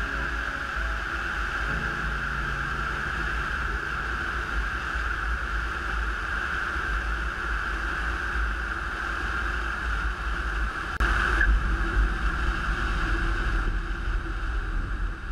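Airflow rushing over a glider's wing-mounted camera at speed, a steady wind noise with a low rumble. About eleven seconds in it turns abruptly louder and heavier.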